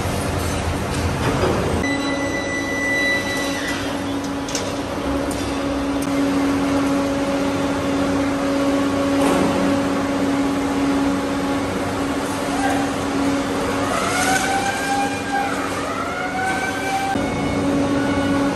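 Steel mill machinery noise while molten steel is poured into a ladle and the ladle is hoisted: a steady rumble with a steady hum that starts about two seconds in and stops near the end, and a few rising-and-falling tones about two-thirds of the way through.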